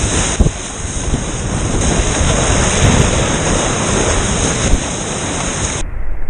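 Sea water rushing and splashing around a waveski as it is paddled, with wind buffeting the microphone, and a couple of sharper splashes. Near the end the sound turns suddenly duller.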